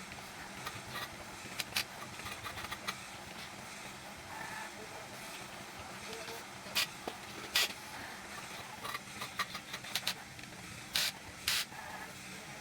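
A string of short, sharp scrapes and clicks over a steady hiss, the loudest about seven and eleven seconds in.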